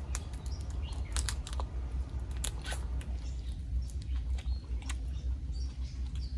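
Close-up chewing and wet mouth clicks of a person eating boiled tiger prawn meat dipped in sauce, with many short, sharp smacks scattered throughout. A steady low hum runs underneath.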